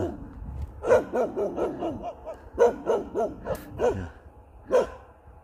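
Jindo dogs giving a string of short whines and yelps, with breathy panting between them.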